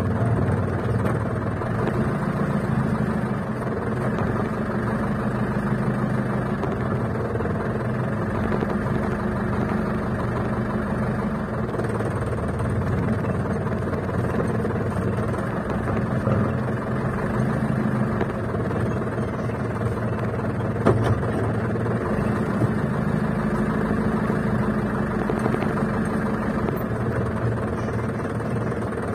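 A Mitsubishi Colt Diesel ("ragasa") truck's diesel engine running at low speed, heard from inside the cab, steady with small rises and falls during slow parking manoeuvres. A single short knock about two-thirds of the way through.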